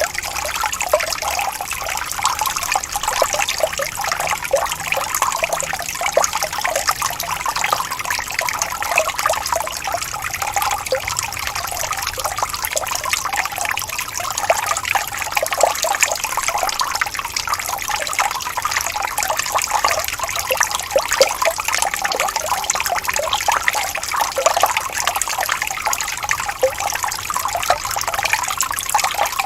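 Gently rippling stream: running water trickling and babbling steadily, with a dense patter of small splashes and no change in level.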